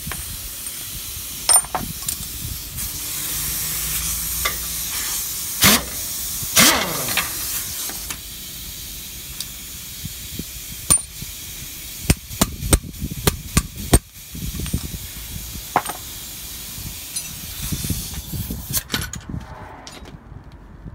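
Metal clicks and knocks of hand tools against the parts of a truck's drum brake, over a steady hiss, with a quick run of sharp knocks a little past the middle.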